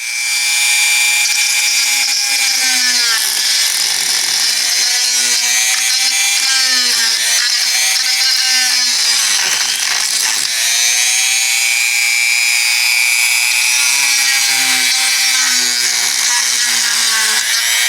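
Dremel rotary tool running at high speed, grinding leftover bone material out of the hollow of a turkey wing bone. Its whine repeatedly dips in pitch and recovers as the bit bites into the bone.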